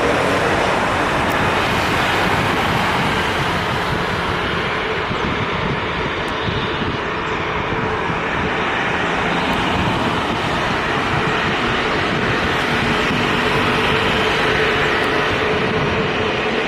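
Jet airliner engines running with a steady roar, mixed with wind buffeting the microphone in a strong wind.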